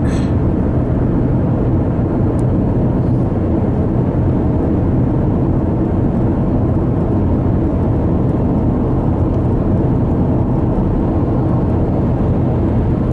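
Steady engine and tyre noise inside a car cruising at highway speed.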